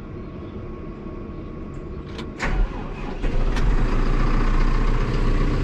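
Fendt tractor's diesel engine starting cold after glow-plug preheating: it catches about two and a half seconds in, builds up over the next second and settles into a steady idle, heard from inside the cab.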